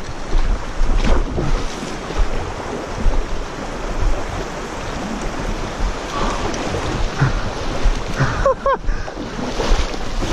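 Shallow river running fast over stones, with wind buffeting the microphone in low thumps.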